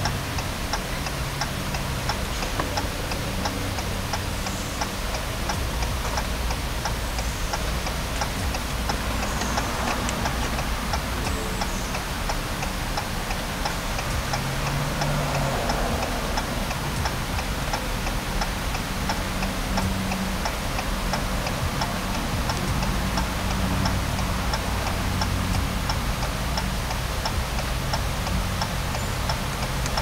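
2019 Dodge Challenger's hazard-warning flasher ticking at a steady, even rhythm over a low steady hum.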